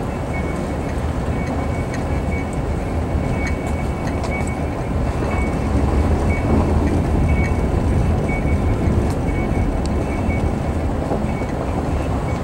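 Car driving slowly on a snow-dusted dirt road: a steady low rumble of engine and tyres, with a few faint ticks.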